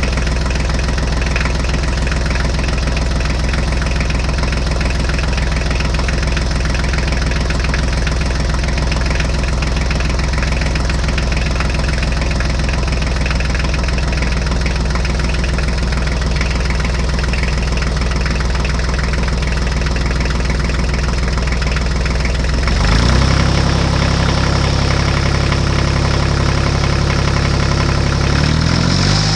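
Mini tractor engine idling steadily with a knocking beat. About three-quarters of the way through it speeds up to a higher, steady pitch, and it changes speed again near the end.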